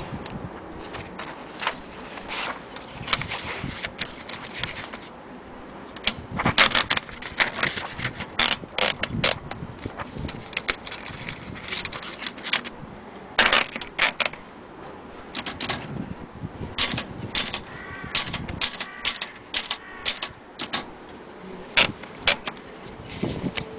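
A long run of irregular clicks, taps and clatters, some in quick clusters, with quieter gaps between.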